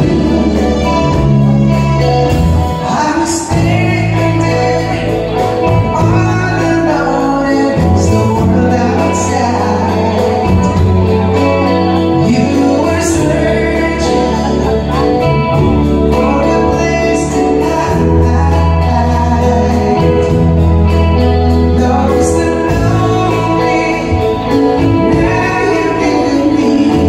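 Live band playing a song: sung vocals over a drum kit, bass and electric guitar, with a steady bass line and cymbal hits every few seconds.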